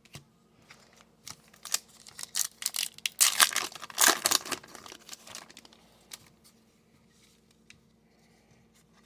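Foil wrapper of a hockey card pack crinkling and tearing as the pack is handled, in a cluster of short crackly bursts that peaks a few seconds in and then dies down.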